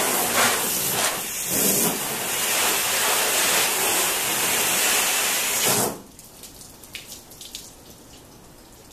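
Garden hose spraying water onto a car's hood: a loud, steady hiss that cuts off suddenly about six seconds in. Afterwards come faint drips and trickles of water running off the beaded paint.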